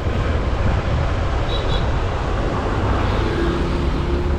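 Motorcycle riding along a road, heard from the rider's camera: a steady low rumble of wind buffeting the microphone over the engine. A brief, faint double high beep comes about a second and a half in, and a steady hum joins near the end.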